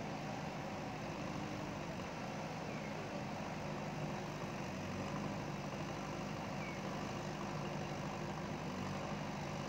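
JCB ecoXcellence backhoe loader's diesel engine running steadily, with an even low hum.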